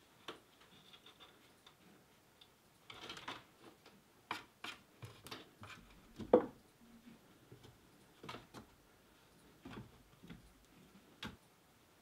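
Cats' paws and claws on wooden hexagon shelves as they climb through them: scattered light clicks, taps and scrapes at irregular intervals, with one louder thump about six seconds in.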